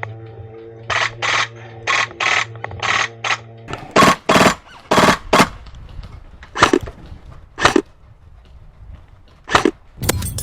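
Airsoft electric guns (AEGs) firing many short bursts, the later ones louder and sharper. A steady low hum runs under the first few seconds and stops.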